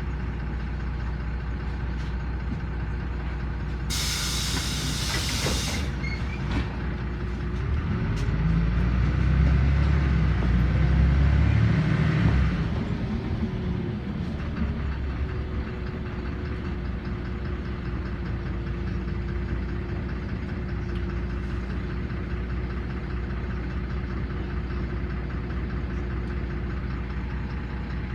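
LiAZ 5292.21 city bus running, heard from inside, with a short sharp hiss of compressed air about four seconds in. Around eight seconds in the engine pulls harder for a few seconds with a rising and falling whine, then settles back to a steady drone.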